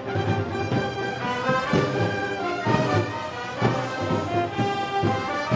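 Brass band playing Moros y Cristianos festival music, with trombones and trumpets over a steady drum beat of about two strokes a second.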